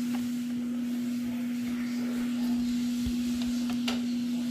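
A steady, single-pitched hum holds unchanged throughout, with a few light clicks about three to four seconds in as a plastic sewing-machine extension table is fitted into place.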